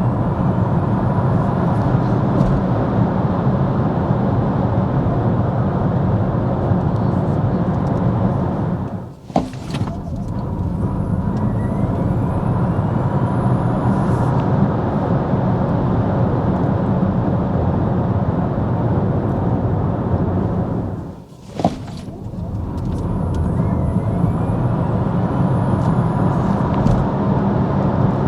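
Steady tyre and wind noise of a Kia EV6 GT driving at speed. The noise drops out sharply twice, each time with a click, then builds back up.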